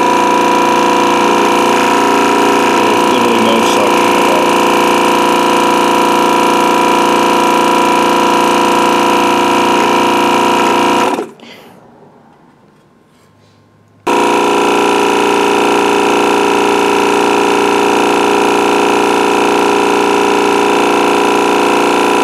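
Hakko 470 desoldering station's vibrating diaphragm vacuum pump running with a loud, steady buzz. It stops about eleven seconds in and starts again about three seconds later. Suction is barely working, from broken valve plates.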